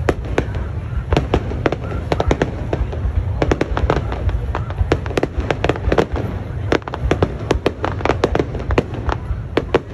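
Fireworks display: aerial shells bursting overhead in a fast, irregular string of sharp bangs and crackles, several a second, over a steady low rumble.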